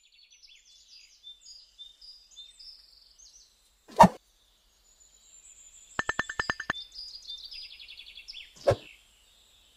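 Morning sound effects: birds chirping, with a loud sudden hit about 4 s in. Around 6 s an alarm clock rings in one short rapid burst of about ten rings a second, and another sharp hit comes near the end.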